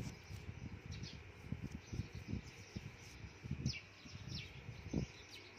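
Faint outdoor ambience: a steady insect drone, with two short falling bird chirps about three and a half and four and a half seconds in. Soft, irregular low bumps of handling noise sit underneath.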